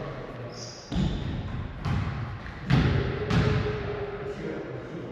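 A volleyball being struck in play, four sharp hits about a second apart, the last two close together.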